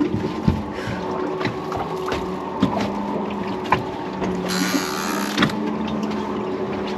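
Outboard boat engines idling with a steady hum, with scattered light clicks and knocks and a hiss lasting about a second just past the middle.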